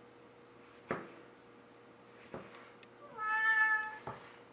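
A cat meows once, a call of just under a second about three seconds in, the loudest sound here. Around it come three sharp taps of a knife slicing through a tomato onto a plastic cutting board.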